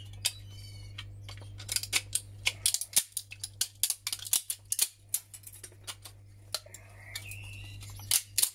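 Hand snips cutting and breaking hard plastic from a vacuum cleaner's motor housing: irregular sharp snaps and cracks, with short creaks of straining plastic.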